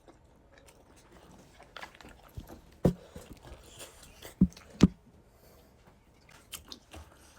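Close-miked eating sounds of someone chewing momo dumplings: scattered wet mouth smacks and bites, with three louder ones around the middle.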